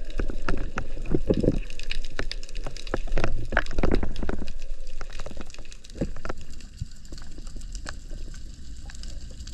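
Underwater water noise picked up by a camera housing: sloshing and gurgling with scattered sharp clicks and knocks, louder for the first few seconds and quieter from about four and a half seconds in.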